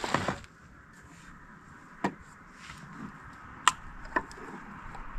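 Camp cooking gear being handled on a wooden picnic table: a brief rustle at the start, then a few sharp clicks and knocks over a faint steady hiss that sets in about halfway through.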